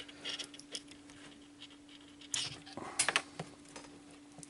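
Light clicks and rattles of small plastic parts being handled, a battery pack and its plug being picked up and fitted, over a faint steady hum that stops a little under three seconds in.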